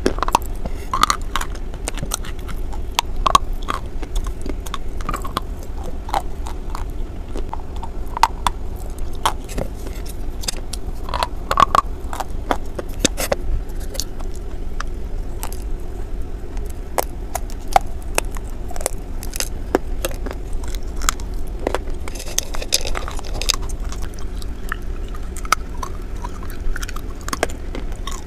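Close-up bites and chewing of a white chalky clay bar: irregular dry crunches and sharp clicks, over a steady low hum.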